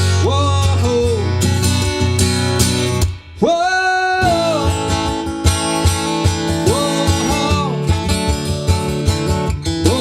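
Acoustic guitar strummed in a steady country rhythm, with long held melody notes that slide up into pitch over it. The playing breaks off briefly about three seconds in, then carries on.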